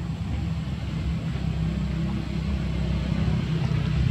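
Steady low engine rumble that slowly grows louder towards the end.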